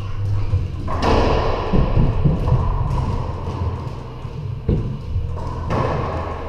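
Racquetball play in an enclosed court: sharp smacks of the ball off racquets and walls, echoing, with one sharp hit about two-thirds of the way through.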